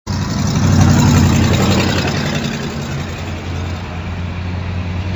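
A heavy vehicle engine running steadily with a deep, even hum over a broad rumble. It starts suddenly and is loudest about a second in, then eases off a little.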